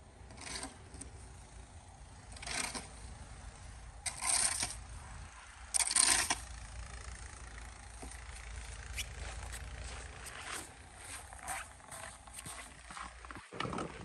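Snow shovel scraping across a concrete driveway in several short strokes, the loudest about four and six seconds in, with a steady low rumble of wind on the microphone.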